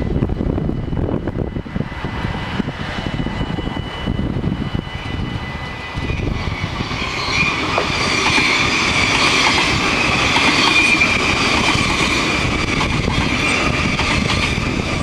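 Level-crossing bells ringing as a steady tone. From about seven seconds in, an NS double-decker electric passenger train passes close by, its wheels clattering and hissing on the rails and growing louder as it goes by. Low wind rumble on the microphone throughout.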